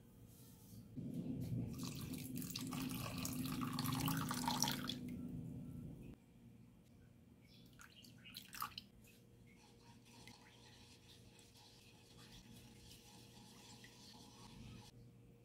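Water poured into a pan of granulated sugar: a splashing pour that starts about a second in and runs for about five seconds. Afterwards there are a few faint drips as lemon juice goes in, then the soft scrape of a silicone spatula stirring the sugar syrup.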